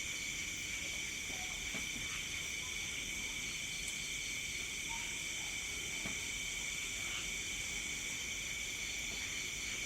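Night chorus of insects such as crickets, several trilling at once at different high pitches, one of them pulsing rapidly; the sound is steady and unbroken.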